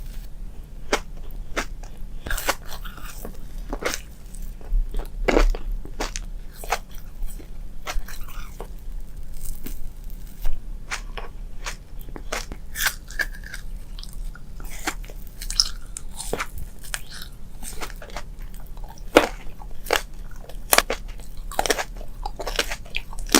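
Close-up crunchy chewing and biting: irregular sharp crunches, a few each second, from someone eating a crisp food.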